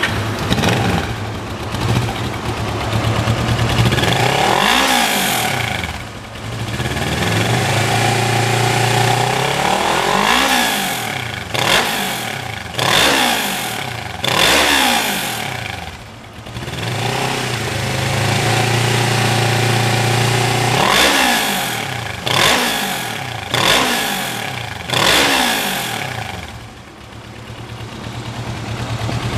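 2007 Kawasaki Ninja 650R's parallel-twin engine idling and being revved repeatedly by hand on the throttle. The pitch rises and falls with each blip, then settles back to a steady idle between them.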